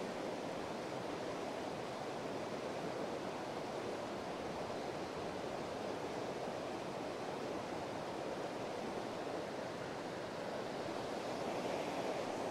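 Steady rush of a small river's fast current running over a shallow, broken riffle.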